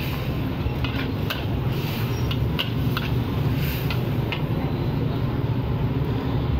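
Metal ladle clicking and scraping against a wok as shrimp is stir-fried, about half a dozen sharp strikes in the first four seconds or so, over a steady low rumble.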